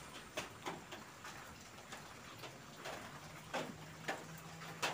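Faint, irregular light ticks and taps, about one or two a second, with a faint low hum in the second half.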